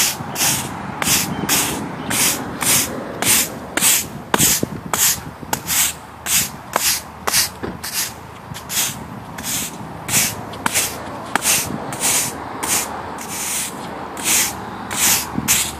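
A broom sweeping pavement in quick, even back-and-forth strokes, about two a second, each stroke a dry bristle scrape, with an occasional sharp tick of grit.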